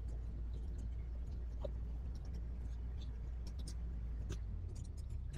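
Can-Am four-wheel off-road vehicle being ridden, heard as a faint, steady low engine rumble with a few light clicks.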